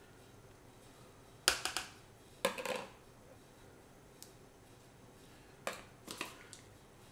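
Small bowls knocking and clattering as they are set down on a wooden cutting board and countertop, in three short clusters of knocks, the first the loudest.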